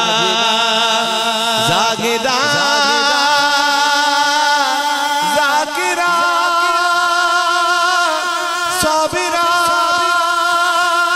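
A man singing a naat, drawing out long held notes with wavering ornaments.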